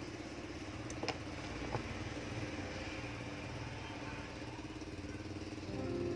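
Steady low motor hum, like an engine idling, with two light clicks about one and nearly two seconds in.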